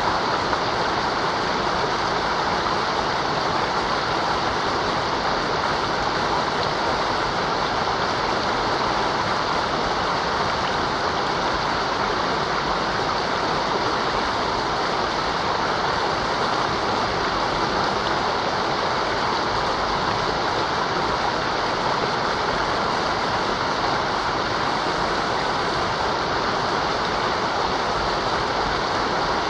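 Mountain river water rushing steadily over rocks, a constant even rush.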